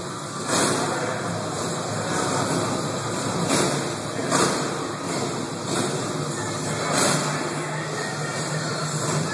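Harley-Davidson Twin Cam 88 V-twin engine of a Dyna Wide Glide sidecar rig, revved hard again and again, with the revs swelling and dropping every second or so while the rear tyre spins on a smooth concrete floor doing donuts.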